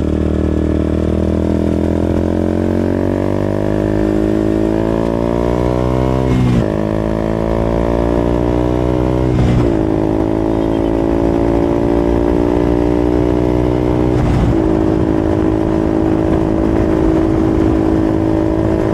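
KTM RC 200's single-cylinder engine through an aftermarket SC Project exhaust, accelerating up through the gears. The pitch climbs and drops at three upshifts, about six, nine and a half and fourteen and a half seconds in, then holds steady at cruising speed.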